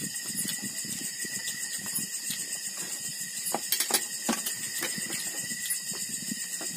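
Steady trilling chorus of night insects, with a few sharp clicks of spoons against plates and bowls, clustered about three and a half to four seconds in.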